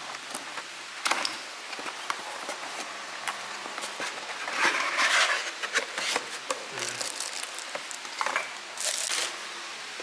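Cardboard box and molded paper-pulp packaging being handled while a stainless steel knock box is unpacked: irregular rustling, scraping and sharp clicks of card, with the loudest rustle about five seconds in and another short one near the end.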